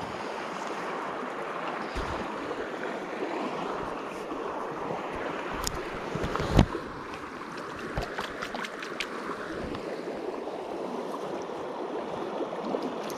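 Steady rush of a flowing river. About halfway through comes a sharp thump, with a few light clicks and taps around it.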